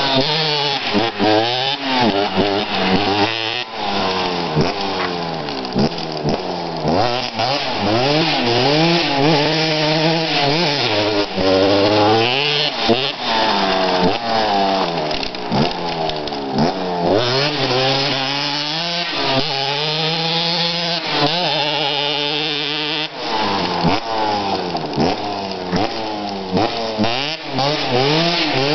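Dirt bike engine revving hard and dropping back again and again as it is ridden around, its pitch repeatedly rising and falling.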